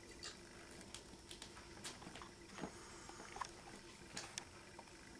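Faint, scattered taps and light scuffles of a kitten pouncing and pawing among electrical cables on a hard floor while hunting a mouse.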